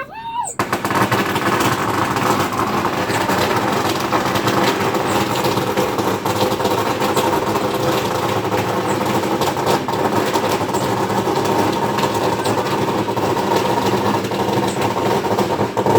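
A lit firework going off in a dense, continuous rapid crackle of pops, starting about half a second in and holding steady in loudness.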